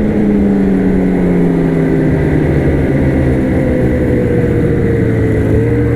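Snowmobile engine running at trail-riding speed, its pitch easing slowly down over the first few seconds and then holding steady.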